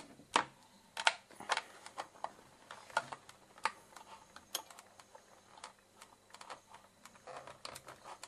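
Irregular small clicks and taps of plastic and wire being handled, with a few sharper clicks in the first five seconds, as a loose cable is pushed back into place inside a coffee machine's plastic housing.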